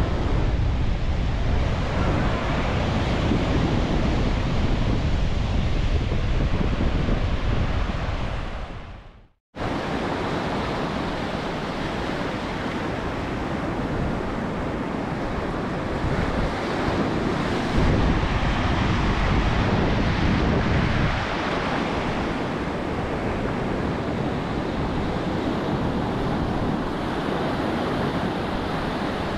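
Ocean surf washing, with wind buffeting the microphone. It fades to silence about nine seconds in, then comes back.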